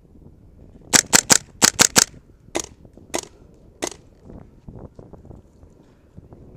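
Gas blowback airsoft gun firing about nine sharp cracks: two quick bursts of three, then three single shots spaced more widely.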